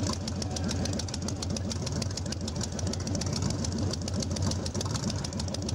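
Motorcycle engine idling steadily, with a rapid, even pulse.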